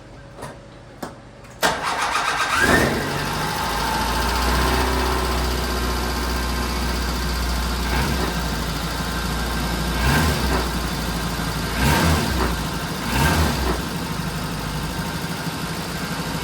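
1991 Suzuki Samurai's engine starting about a second and a half in, just after its oil change, then idling steadily. The revs rise briefly right after it catches and three more times later on, short throttle blips.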